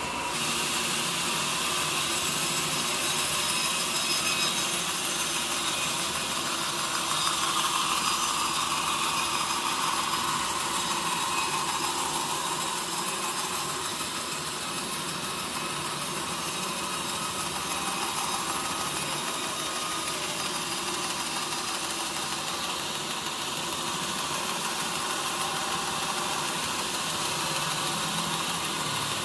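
Sawmill saw running steadily as it cuts through a mahogany log, a little louder about a quarter of the way in.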